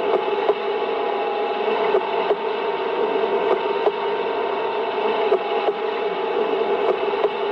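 Steady static-like hiss with a faint held tone and scattered sharp clicks at irregular intervals.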